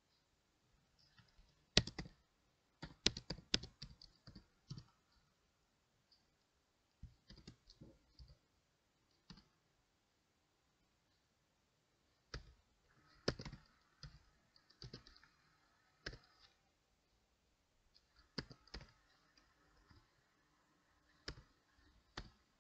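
Computer keyboard keys clicking in short bursts of typing, with pauses of a second or more between bursts.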